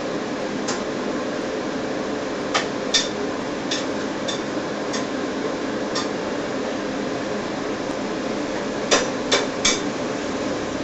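Sharp clicks and knocks at irregular intervals, with three in quick succession near the end, over a steady low background hum.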